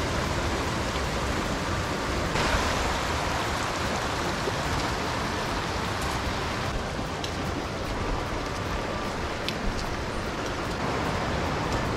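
Shallow river rushing over rocks, a steady rushing noise.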